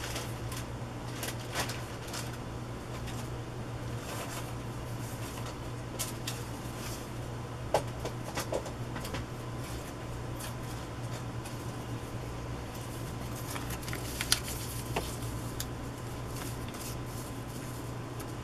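Sparse rustles and light taps as paper scraps are handled and moved around, over a steady low hum. The sharpest taps come about eight and fourteen seconds in.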